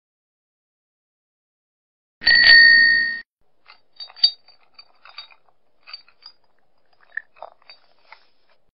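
A bicycle bell rings once, loudly, about two seconds in, for about a second. It is followed by a scattering of faint metallic clinks.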